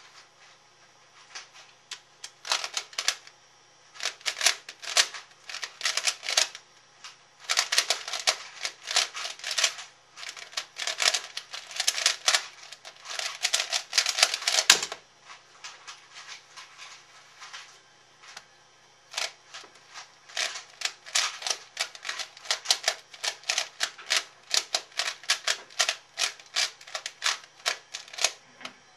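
Rapid plastic clicking of a C4U 3x3x3 speedcube's layers being turned during a speedsolve, in fast runs with brief hesitations, ending in a single sharper knock about fifteen seconds in. After a pause of a few seconds the clicking of cube turns starts again and runs until near the end.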